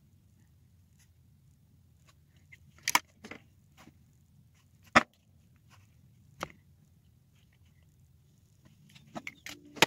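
Sharp, isolated clicks and taps of plastic makeup containers and caps being handled, a few seconds apart, the loudest about halfway through, then a quick run of clicks near the end.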